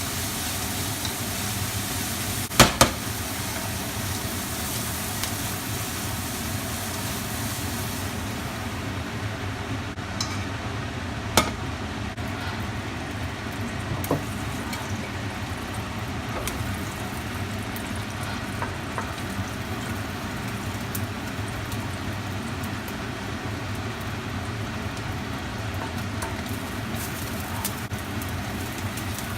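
Food sizzling in a pan as rice noodles are stir-fried, over a steady rushing noise. A few sharp clanks of the spatula against the pan: two close together a few seconds in, then single ones later.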